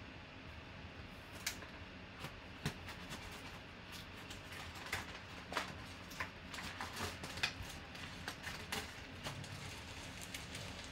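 Faint rustling and crinkling of packaging as a baseball bat is slid out of its white sleeve, with irregular small clicks and crackles that come thickest in the middle stretch.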